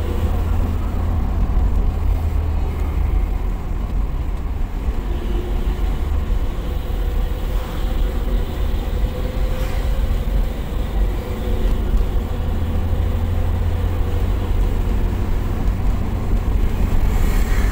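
Steady low driving rumble of a moving vehicle: engine and road noise from the vehicle following close behind an intercity bus.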